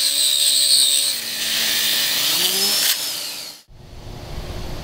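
Two-speed AGP tile core drill running in first gear while its 40 mm diamond core bit cuts dry into wall tile, with the hiss of the dust extractor drawing through the suction guide. The motor's hum drops slightly about a second in as the bit takes load. It cuts off suddenly, and a duller low rumble follows near the end.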